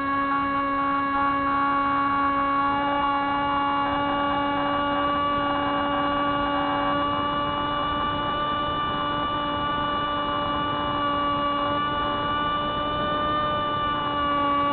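Spyhawk FPV model plane's electric motor and propeller running at a steady throttle: an even, unbroken droning hum that wavers slightly in pitch near the end.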